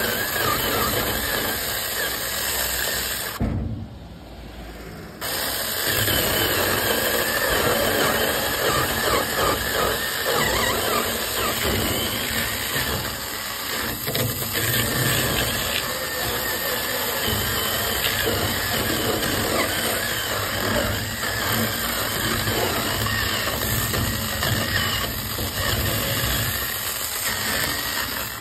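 A 6-inch cordless mini chainsaw that runs on Makita-compatible batteries, cutting into a dry wooden post with the chain biting and throwing chips. It eases off for about two seconds some four seconds in, then cuts on steadily.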